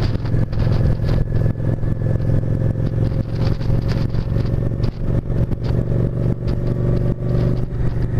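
Cruiser motorcycle engine running steadily at cruising speed under the rider, with irregular rough bursts of wind noise on the microphone.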